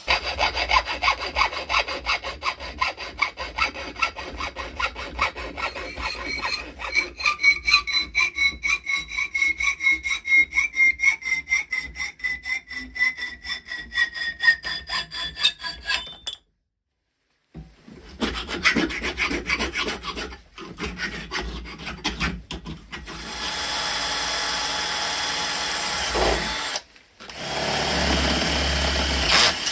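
Hand saw cutting with quick, regular back-and-forth strokes and a ringing tone that slowly falls in pitch. After a break, mixed working noises follow, then two steady runs of a power tool near the end.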